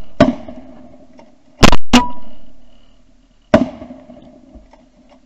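Shotgun blasts: four shots in about three and a half seconds, the middle two close together, each trailing off in a long echo. They are follow-up shots at a wounded duck on the water.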